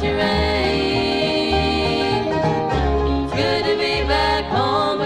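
Bluegrass band music from a vinyl record: banjo, guitar and upright bass playing in a steady beat, with a sliding lead line over the top.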